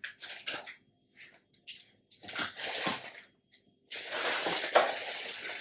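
Plastic snack packets crinkling and rustling as they are handled and dropped into a clear plastic storage bin: a few short bursts, then steady rustling from about four seconds in.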